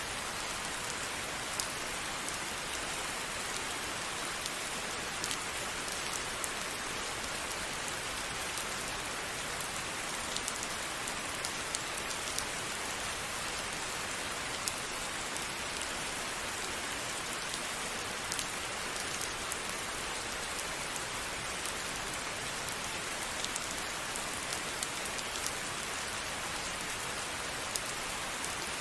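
Steady rain falling, a dense even hiss with many individual drops ticking sharply on a surface.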